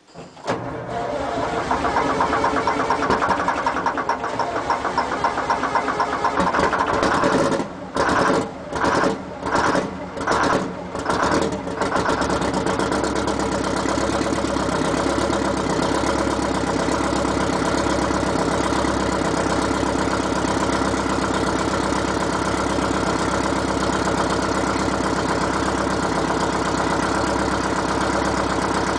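Ford 9000 semi tractor's diesel engine starting cold, on its second try after the battery was charged. It runs unevenly at first, cutting out and catching again five or six times between about eight and twelve seconds in, then settles into a steady idle.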